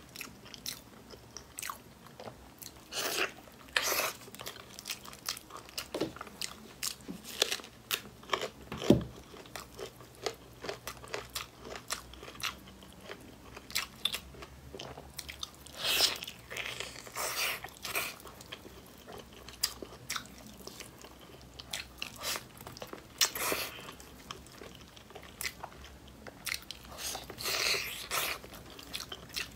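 Close-miked eating of braised pork on the bone: biting, chewing and wet mouth sounds, with irregular sharp clicks and smacks coming in clusters.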